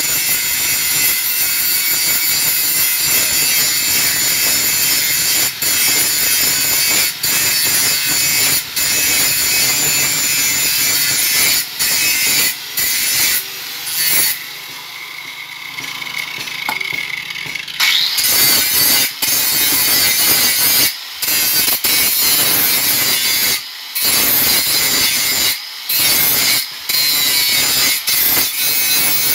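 Electric angle grinder cutting a steel rod with its abrasive disc, a loud harsh grinding broken by short gaps every second or two. For a few seconds just past the middle it runs quieter and duller.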